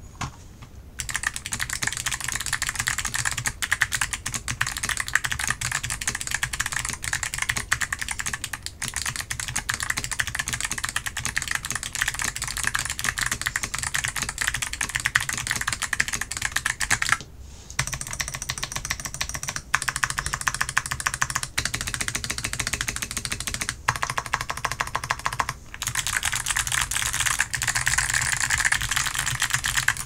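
Fast continuous typing on a mechanical keyboard with Kailh BOX Jade clicky switches, a dense stream of crisp clicks. The board is tape-modded and foam-filled. The typing starts about a second in and pauses briefly a few times.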